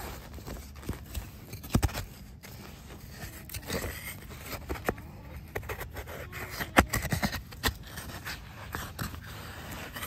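A knife blade scraping and prying soft white coconut meat out of a husked coconut, with fibrous husk crackling; irregular sharp clicks and scrapes, the loudest a little under two seconds in and again near seven seconds.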